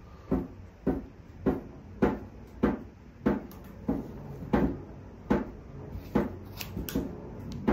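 Scissors snipping through bundles of wrapped yarn on a pom-pom loom frame, cutting the layers free at the nails: a steady run of about a dozen sharp snips, nearly two a second.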